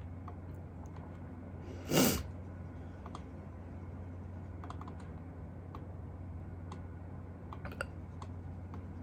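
A single short hiccup about two seconds in, over a steady low hum, with faint scattered clicks and a small cluster of clicks near the end.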